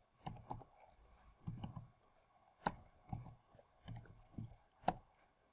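Typing on a computer keyboard: an irregular run of keystrokes, each a sharp click with a dull thud under it, the two loudest about two and a half and five seconds in.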